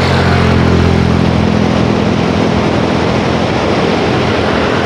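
A motor vehicle's engine hums close by, strongest over the first two seconds and then fading, over a steady rush of water churning out below the barrage gates.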